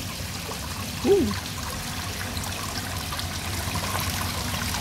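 Steady trickle of water running into a koi pond.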